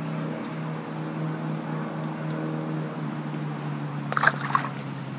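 A small bass is dropped back into a pond and lands with a brief splash about four seconds in. A steady low hum runs underneath.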